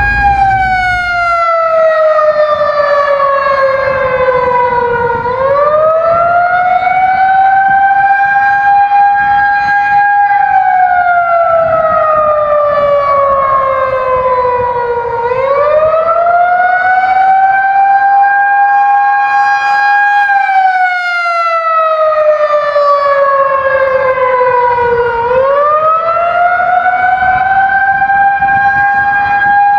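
Outdoor warning siren sounding a wail: a tone that climbs in about two seconds, holds, then slides slowly down, repeating about every ten seconds.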